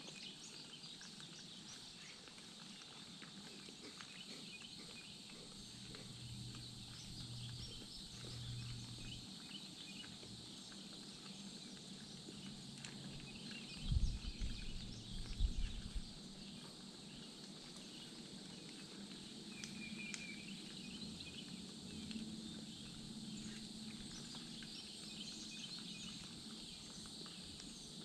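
Outdoor ambience of many small insect and bird chirps and ticks, with a few loud low thumps about halfway through.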